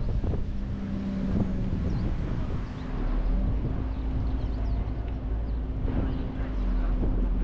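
Wind buffeting the microphone on a moving boat, over the steady low drone of the boat's engine.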